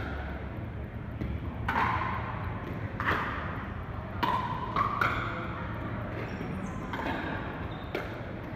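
Pickleball paddles striking a hard plastic ball in a doubles rally: a string of sharp, hollow pocks about a second apart, each ringing briefly and echoing around a large hall.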